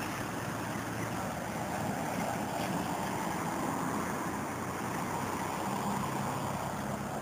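Steady road traffic noise, with a low engine hum that is louder at the start and again near the end.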